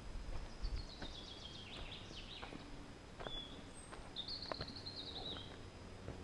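A songbird singing: a run of quick high notes falling in pitch, a single short note, then a second falling run. Footsteps on the trail sound under it.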